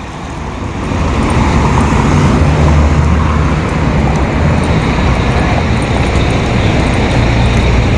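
Street traffic: a motor vehicle's engine hums low and steady over the wash of road noise. The noise swells over the first second, then holds.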